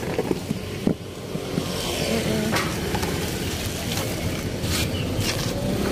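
Steady traffic hum and rumble of a busy street market, with a sharp click about a second in and a few short plastic-bag rustles in the second half.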